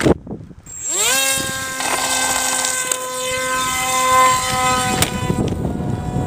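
A sharp knock, then the RC model plane's motor and propeller spool up with a rising whine about a second in and hold a steady high-pitched whine, at full throttle in flight. The pitch dips slightly near the end.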